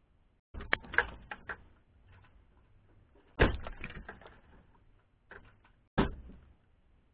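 Air gun shots and pellet impacts on a target set-up: a quick run of sharp cracks from about half a second in, a louder crack about three and a half seconds in followed by smaller clicks, and another sharp crack near the end.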